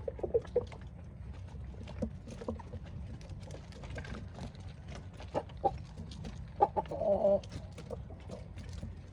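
Chickens clucking: a few short clucks at the start and a louder run of clucks about seven seconds in, with many short clicks scattered throughout over a steady low rumble.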